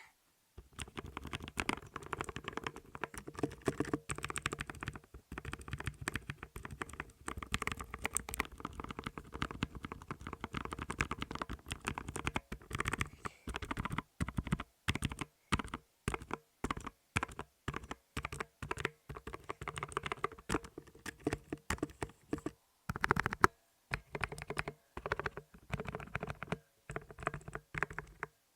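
Clicky blue mechanical keyboard switches being typed on: fast, dense typing for the first half, then slower, separate keystrokes with short gaps between them.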